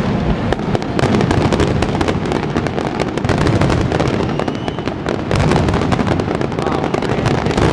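Fireworks finale barrage: aerial shells bursting in rapid, unbroken succession, with dense crackling over a continuous low rumble.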